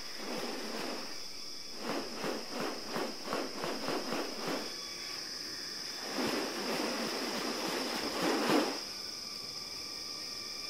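Rainforest ambience with a steady high insect drone. Over it comes a quick series of rasping pulses, about three or four a second, and then a longer, louder noisy rush that swells and stops suddenly.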